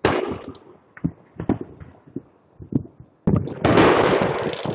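Consumer fireworks going off: a bang at the start, a handful of separate sharp pops, then a loud burst that turns into a dense, fast crackle with a hiss about three and a half seconds in.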